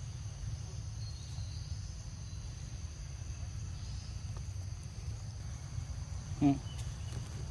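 Steady high chirring of forest insects over a low rumble. About six and a half seconds in, a single short voice sound cuts in briefly, louder than the rest.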